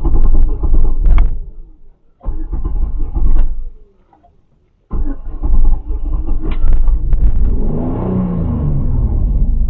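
Car running with a loud low rumble that drops out twice in the first half, then a vehicle's engine note rising and falling near the end.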